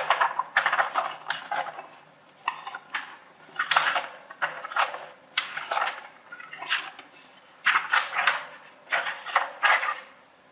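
Computer keyboard typing in short bursts of rapid key clicks, about a dozen bursts with brief pauses between them.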